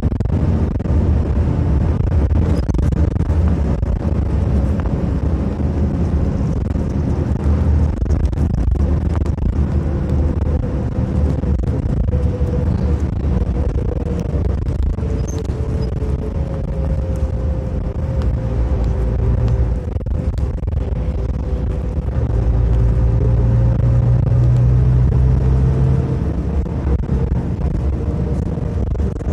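A city bus in motion, heard from inside the cabin: a steady low engine and road rumble, with a faint whine that holds and drifts slightly in pitch through the middle. The rumble grows louder for a few seconds near the end.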